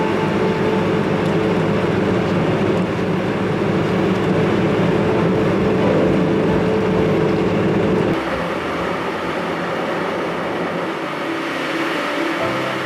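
Horizontal directional drilling rig's engine and hydraulics running steadily under load. About two-thirds of the way through, the low part of the sound drops away and it becomes somewhat quieter.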